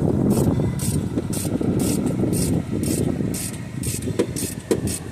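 Hand ratchet wrench being swung back and forth on the starter mounting bolt, its pawl rasping in short bursts about twice a second, with a couple of sharp metal knocks near the end and a low traffic rumble underneath.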